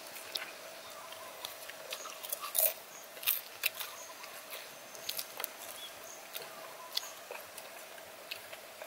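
Close-miked eating sounds: chewing with scattered sharp crunches and mouth clicks over a faint steady hum.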